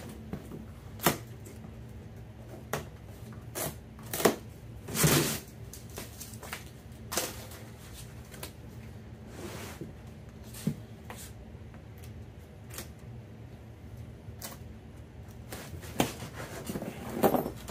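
A cardboard shipping box being unpacked by hand: plastic packing straps cut with a knife, then the cardboard flaps and packing inside pulled and handled. The result is scattered snaps, rustles and knocks at irregular intervals, with a louder cluster of rustling about five seconds in and again near the end.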